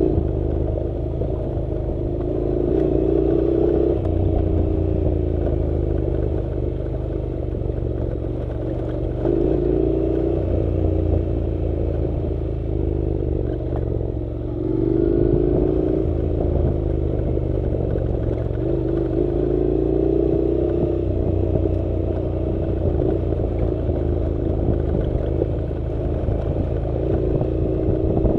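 Honda NC700's parallel-twin engine running as the motorcycle rides a dirt road, its note rising and falling again and again with the throttle.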